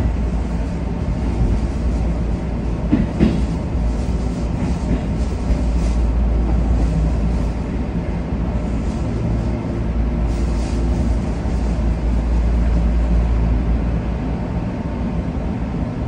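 Shin-Keisei Line electric train rumbling steadily, heard from behind the driver's cab, with a couple of metallic clanks about three seconds in.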